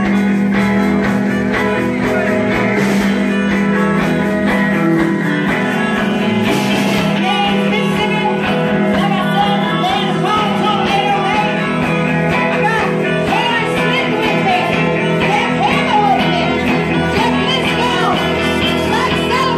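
Live band playing loud amplified music with banjo and drums. From about eight seconds in, a voice sings over it.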